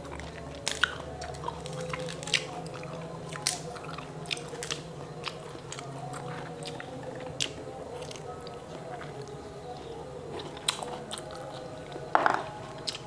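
Close-up eating sounds of matoa fruit: the thin rinds crack and snap in scattered small clicks as they are peeled by hand, along with chewing of the juicy flesh. A louder crackle comes about twelve seconds in, over a faint steady low hum.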